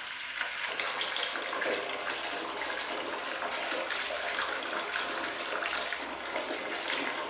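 A thin stream of water falling into a stainless steel basin already holding water: a steady splashing trickle.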